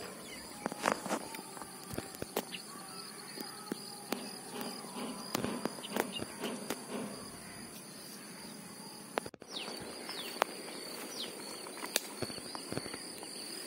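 Lakeside ambience: a steady, high, pulsing insect trill, with scattered light clicks and a few faint bird chirps.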